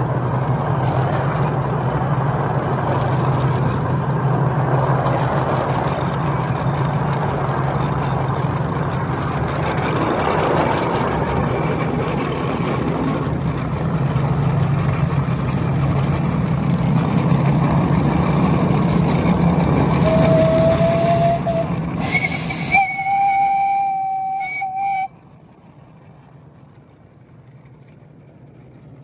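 Ride-on miniature steam locomotive running along its track, a steady rumble of the engine and wheels on the rails with steam hiss. Near the end its steam whistle sounds twice, a short lower note and then a longer, higher blast, after which the running sound drops away suddenly to a faint low hum.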